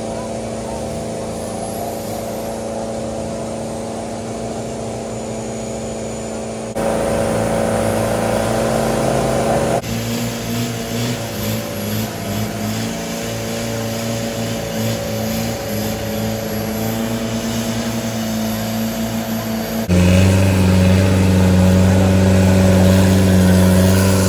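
Off-road 4x4's engine running under load in deep clay mud, held at steady revs. It steps up sharply in loudness twice, about a third of the way in and near the end, where it runs loudest.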